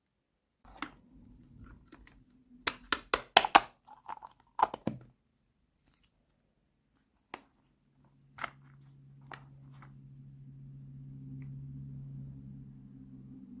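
Small plastic toy kitchen pieces being handled: a run of sharp clicks and taps, bunched in the first five seconds, then a few single clicks. A low steady hum starts about eight seconds in.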